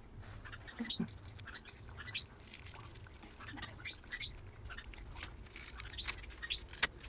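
Plastic candy wrapper crinkling and crackling as a lollipop is unwrapped by hand, with one sharp crackle near the end. A few short high squeaks come in the first few seconds.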